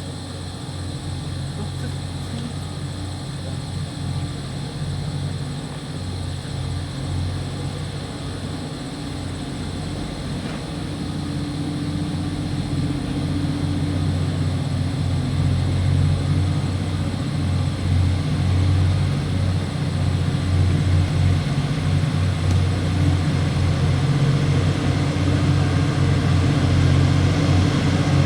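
Diesel-electric locomotives of a freight train, a Taiwan Railways R180/R190-class pair, with their engines running as a steady low hum that grows gradually louder as the train approaches.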